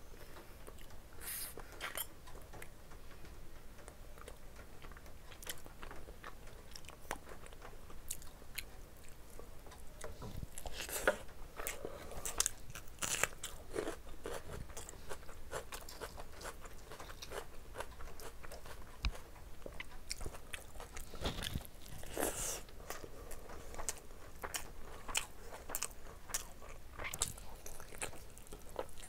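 A person chewing and biting into curried chicken and mutton with rice: a continuous run of wet mouth clicks and small crunches, busier around the middle and again about three quarters through.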